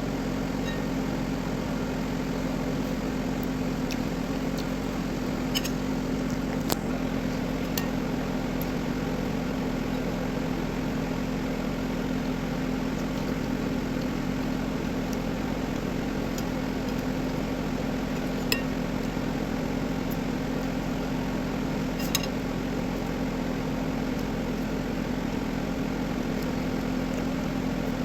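A steady motor hum with a few low tones running under it, and a handful of short sharp clicks here and there.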